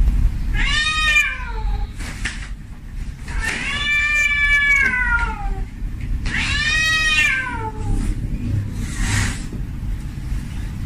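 Tomcat in heat yowling to call a female: three long drawn-out meows, each sliding down in pitch at its end. A short breathy noise follows about nine seconds in, over a steady low rumble.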